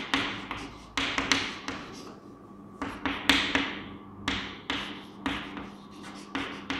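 Chalk writing on a chalkboard: irregular sharp taps as the chalk strikes the board, with scratchy strokes between them.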